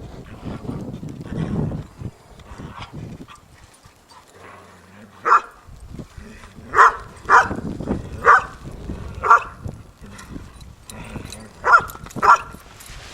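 Dog barking in short, sharp barks, about eight of them: a quick run from about five to nine seconds in and two more near the end. A lower, duller rumbling sound comes before the barks.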